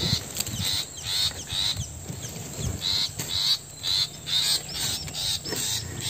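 Long-tailed shrike, a parent of the nestlings, giving short, harsh calls over and over, about two or three a second.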